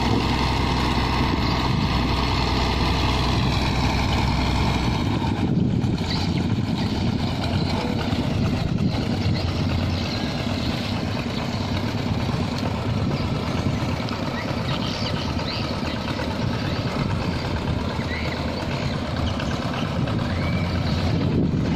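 Hino diesel engine of a wooden river tug running steadily as the boat tows a large log. The engine's steady drone is clearest at first; about five seconds in, a rougher rushing noise takes over.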